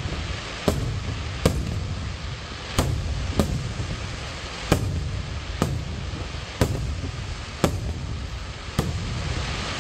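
Fireworks display: aerial shells bursting in a run of sharp bangs, roughly one a second, over a continuous low rumble.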